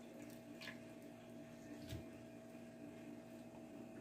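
Faint room tone with a steady low hum and two soft ticks about a second apart.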